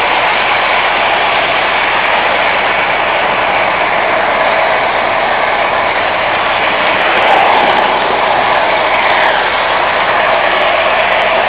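O-gauge model train running on its track: a steady, close-up mechanical rolling noise of wheels and motor.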